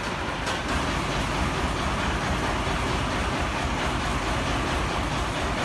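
A heavy vehicle's engine running steadily, a constant dense mechanical noise with no breaks.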